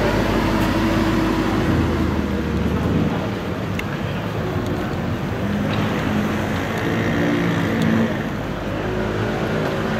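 Spyker C8 Aileron's naturally aspirated 4.2-litre Audi V8 idling steadily through its centre exhaust for about three seconds, then a Spyker C8 Aileron V8 pulling away at low speed in street traffic, its engine note rising and falling.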